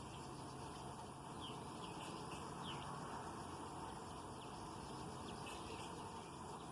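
Backyard ambience: faint, short bird chirps, several in quick succession in the first half, over a steady low background noise.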